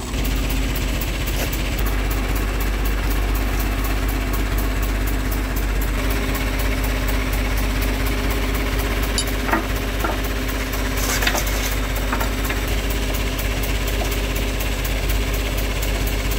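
Old mobile yard crane's engine idling steadily. A few sharp metal clinks a little past halfway, from a steel bow shackle being handled.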